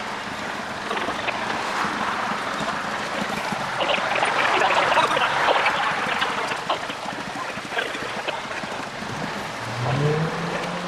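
Outdoor street-corner ambience: a steady rushing, water-like noise that swells in the middle, with a short rising tone near the end.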